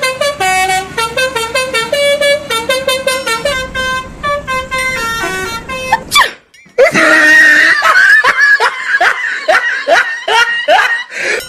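Musical 'telolet' bus horn playing a quick tune of short, stepped notes. After a brief gap about halfway through, a faster run of short rising tones follows.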